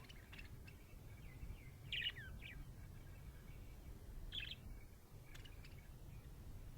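Budgerigar chirping in short, scattered calls, some gliding down in pitch. The calls are loudest about two seconds in and again a little past four seconds, over a low background rumble.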